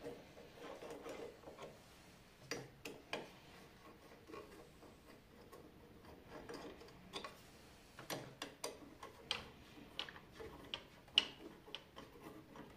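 Faint, irregular small clicks and taps from a hand tool and metal parts being worked at the cutterhead of a Belmash 2200 thickness planer during a knife change.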